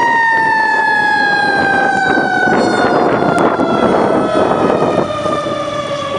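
Fire truck's Federal mechanical siren winding down, its pitch falling slowly and steadily, with road noise from the passing truck swelling in the middle.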